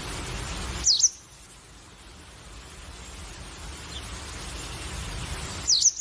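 A bird gives a short, high call of two or three quick downward-sweeping notes, twice, about five seconds apart. Behind it is a steady hiss that cuts out suddenly just after the first call and slowly builds again.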